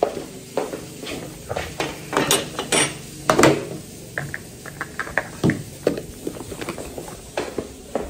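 Dishes and metal cutlery clinking and clattering in an irregular string of knocks, with a few louder ringing clinks about two to three and a half seconds in.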